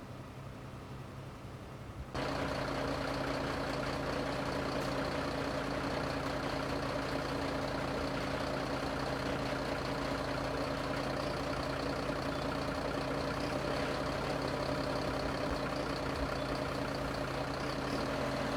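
Heavy vehicle engine running steadily at an even pitch, coming in suddenly about two seconds in after a quieter hiss.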